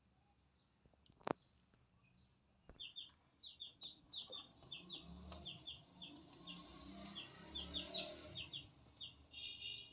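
Chicken chicks peeping: short, high, slightly falling calls repeated about three times a second, starting about three seconds in. A single sharp click comes about a second in.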